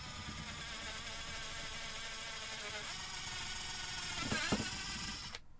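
Cordless drill with a 15/64-inch twist bit running steadily as it bores a hole lengthwise through a cardboard fuse tube. The motor's whine wavers and dips briefly near the end, then stops.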